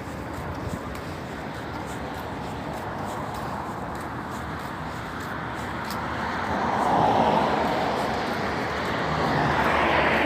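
Road traffic going by: a steady hiss of tyre noise that swells as one car passes about two-thirds of the way through and another near the end.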